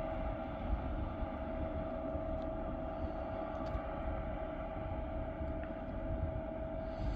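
Heavy vehicle engine running steadily: a low rumble with a constant high-pitched whine over it and a few faint ticks.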